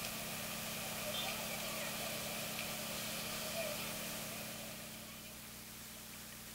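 Street background noise: a steady hum of distant traffic with indistinct voices, which drops to a quieter indoor hush about two thirds of the way through.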